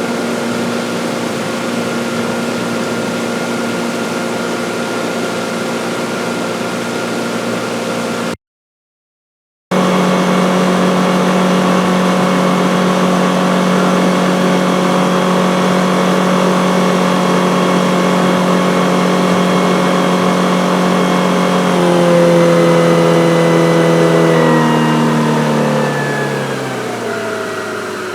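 Sport boat's outboard motor running steadily at slow speed. After a short silent break it runs steady again, then about three quarters of the way through its pitch drops in steps and it grows quieter as the throttle comes back and the boat slows down.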